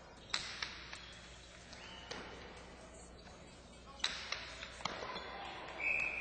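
Jai-alai pelota smacking against the fronton walls and wicker cestas during a rally: a run of sharp cracks, a cluster in the first second and another about four seconds in. A short high steady tone starts near the end.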